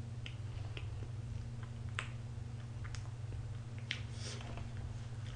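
Quiet eating sounds from cream cake: a handful of faint, sharp clicks of mouth smacks and a fork, over a steady low hum.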